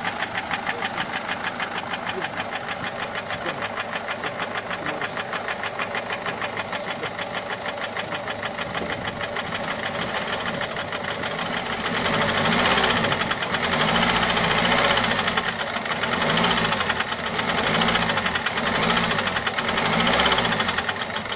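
Peugeot 1.6 HDi four-cylinder turbodiesel idling with a fast, even ticking clatter from the top of the engine, then revved in about five short blips in the second half. The mechanic takes it most likely for a broken rocker arm (finger follower) or hydraulic lash adjuster.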